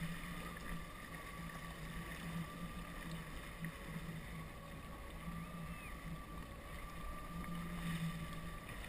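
Jet ski engine idling steadily, with a low, slightly pulsing hum and wind noise on the microphone.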